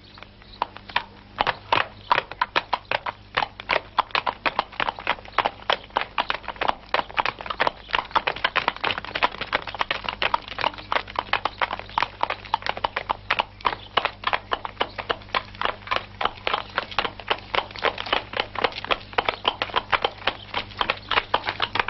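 Two horses' hooves clip-clopping on cobblestones in a dense, even run of hoofbeats that starts about half a second in.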